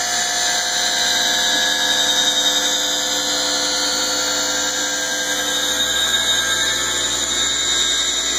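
Foley 672 bedknife grinder running, its motor-driven grinding wheel grinding along a mower bedknife as the head traverses the bed: a steady whine over a grinding hiss.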